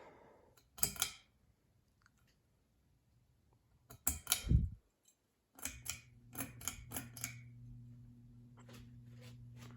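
A few sharp clicks and a knock, then about six seconds in the motor of a 2000 Hampton Bay Littleton ceiling fan starts and settles into a steady low hum, with a few light clicks and rattles over the next couple of seconds.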